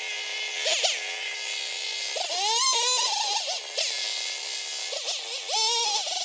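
660-class two-stroke chainsaw cutting, its engine holding a steady note and twice revving up and dropping back, once a little after two seconds in and again near the end.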